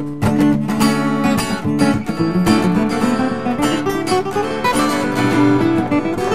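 Acoustic guitar strummed and picked, playing the closing bars of a song.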